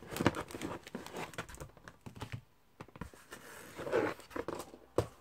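Stiff cardboard mailer envelope with packing tape being handled: irregular rustling and crinkling with many small clicks and scrapes of card.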